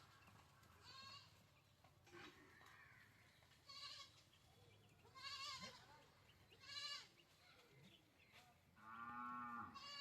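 Faint, quavering bleat-like calls from farm animals, about five of them, each under a second, with a longer call near the end.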